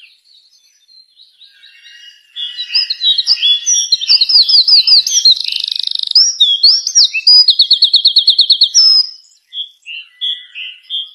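A bird singing a loud, varied song of quick whistled notes and sweeps, including a fast trill of about nine notes a second, with softer calls before and after the loud part.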